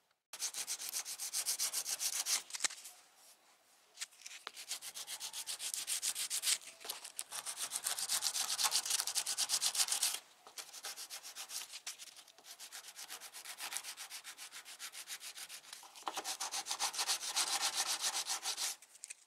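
80-grit sandpaper rubbed by hand over cured fiberglass filler, shaping it in quick back-and-forth strokes, several a second, with short pauses about three seconds and ten seconds in.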